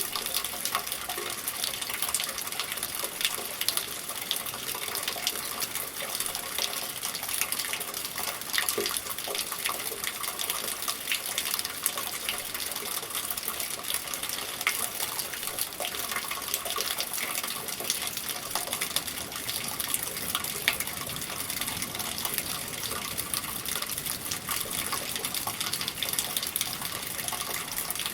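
Steady rainfall: a continuous hiss dense with fine patter of drops.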